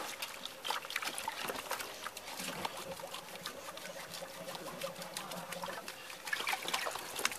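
Water splashing and dribbling in a plastic basin as a soapy puppy is rinsed with water poured from a bottle and scrubbed by hand, with many small splashes.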